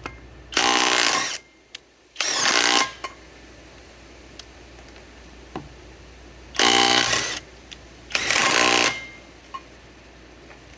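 Kobalt subcompact cordless impact wrench hammering on a trailer's lug nuts in four short bursts of under a second each, two in quick succession, a pause, then two more.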